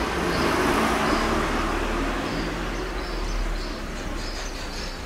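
A motor vehicle's running noise that swells about a second in and then slowly fades, with short high chirps through it.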